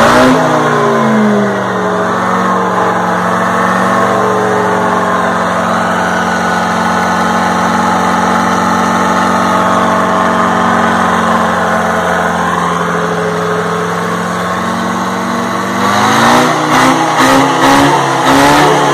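1960 Detroit Diesel 4-71, a two-stroke four-cylinder diesel, running: it settles from a rev down to a steady idle in the first second or two. About three-quarters of the way through it is revved up and down in several quick throttle blips. The owner says the motor sounds young.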